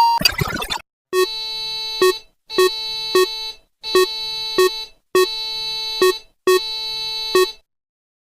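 A short burst of noise, then a synthesized emergency alert tone sounding five times, each beep about a second long and repeating about every 1.3 seconds.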